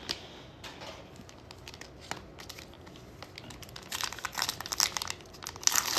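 Foil wrapper of a Panini Mosaic basketball card pack crinkling and tearing as it is ripped open by hand, the crinkling starting about two-thirds of the way in after light handling rustles.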